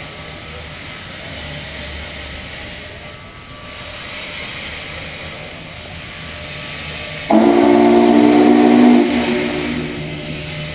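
Union Pacific 844 steam locomotive drifting in with a steady hiss of steam venting around its front and wheels. About seven seconds in, a loud whistle chord of several notes at once sounds for about two seconds, then gives way to the hiss again.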